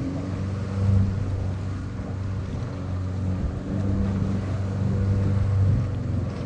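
Small open tour boat's motor running steadily with a low hum, water washing past the hull.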